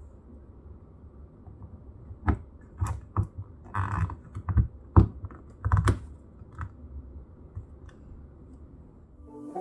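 Small hard-plastic clicks and taps as a figure's peg-footed boots are pressed into the holes of its plastic display base. A scattering of sharp clicks comes in the middle stretch, with the loudest about five seconds in.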